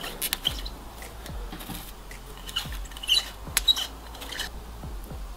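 Plastic cling film being pulled off its roll and spread over a wooden cutting board, crackling and crinkling in quick irregular clicks, with a few louder clusters about three to four seconds in.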